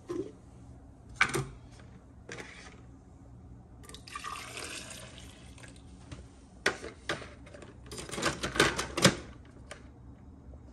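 Plastic travel mug and paper cup being handled on a kitchen counter: clicks as the mug's lid comes off, a short soft pour of coffee from the paper cup into the mug, then a quick run of clicks and knocks as the lid goes back on and the cup is set down, loudest near the end.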